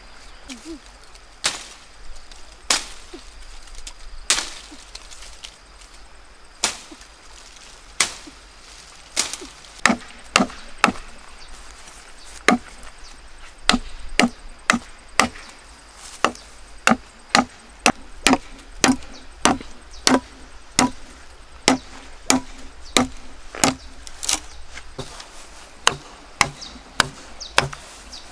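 Machete chopping into a green bamboo pole: a few spaced blows, then from about nine seconds in a steady run of about two sharp chops a second.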